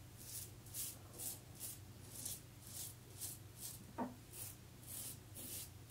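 Leningrad-1 T-shaped safety razor scraping through lathered stubble in short strokes, about two a second, a dozen in all, each a brief faint rasp.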